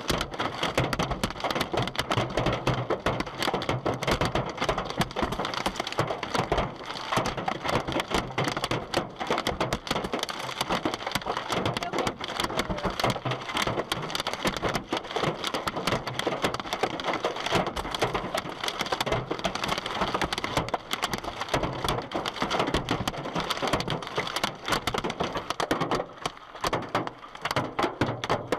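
Hailstones pelting hard surfaces in a heavy hailstorm: a dense, unbroken clatter of countless sharp impacts.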